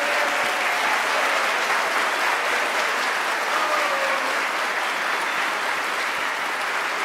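A large audience applauding steadily in a hall.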